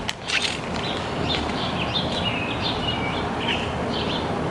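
Small birds chirping in a series of short calls, with a brief rustle and crinkle of a plastic packet being handled at the start.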